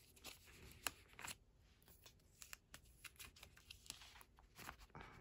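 Faint rustling and scattered light clicks of photocards being slid into clear plastic binder sleeve pockets.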